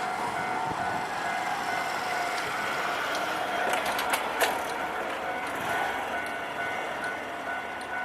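Japanese railway level-crossing alarm ringing steadily with evenly repeated strikes, and a few sharp clicks about four seconds in.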